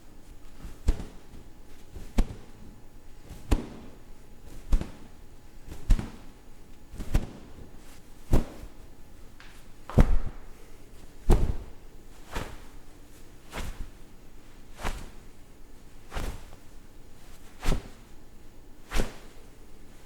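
Cloth swung fast through the air, making short sharp swishes and snaps about once every second and a quarter, some fifteen times.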